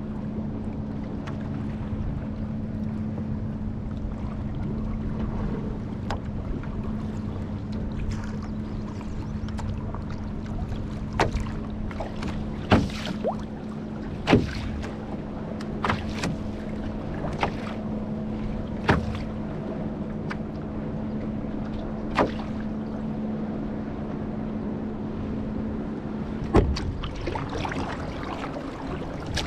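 Canoe being paddled, with the paddle knocking against the hull every second or two. Under it runs a steady low mechanical hum that stops suddenly near the end.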